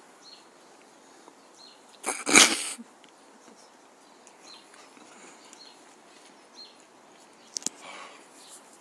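A man eating a whole lemon lets out one sudden loud blast of breath through his mouth and nose, like a sneeze, about two seconds in. Near the end there is a sharp click and a shorter breathy puff.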